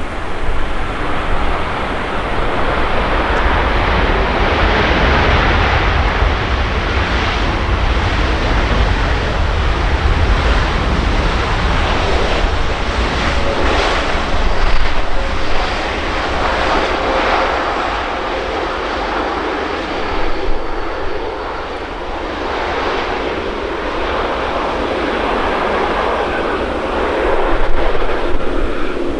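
Jet engines of a Boeing 787-9 Dreamliner landing: a loud, steady rushing roar with deep rumble that swells about halfway through and again near the end.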